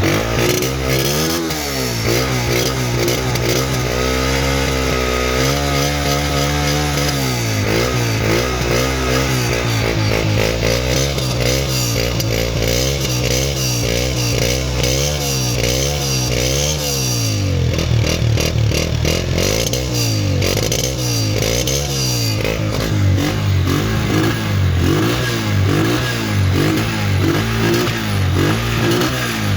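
Honda CG 125's single-cylinder four-stroke engine revved again and again, its pitch rising and falling with each throttle blip. There is a longer held rev about five seconds in, then a run of quick blips, then slower rises and falls near the end.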